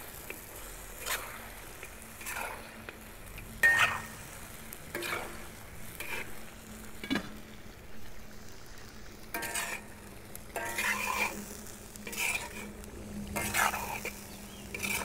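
A metal spatula scrapes and stirs chicken pieces and tomatoes in a wok, about one stroke a second, over the steady sizzle of the meat frying in oil.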